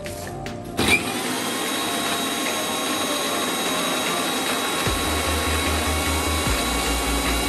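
Electric mixer grinder switched on about a second in and running steadily with a whine, grinding dry toasted bread into crumbs in its small steel jar.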